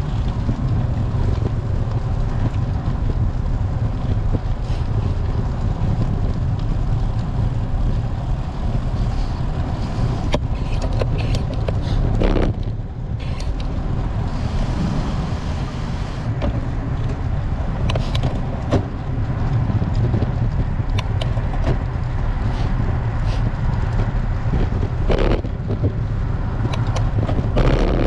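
Steady low rumble of wind buffeting an action camera's microphone while riding a road bike, with road noise and a few short clicks and rattles.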